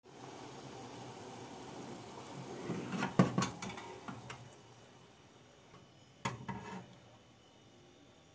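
Enamel pot clanking against the metal grate of a gas stove as it is taken hold of and moved, in two clusters of knocks, about three seconds in and again about six seconds in. Under the first half is a soft hiss of hot liquid simmering in the pot, which fades out about halfway.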